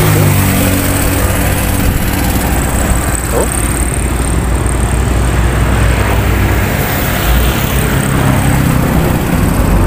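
Motorcycle engine running steadily while riding, with rushing wind and road noise.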